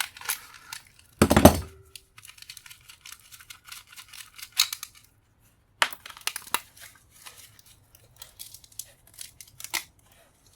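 Small metal scrap being worked by hand: one heavy clunk about a second in with a short ring after it, then scattered clicks and scraping of metal parts. This is a steel nut being taken off a brass fitting.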